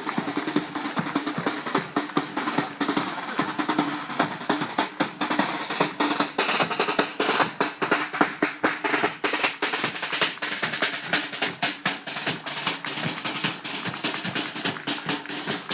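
Marching band's snare drums playing a rapid, steady marching beat with rolls.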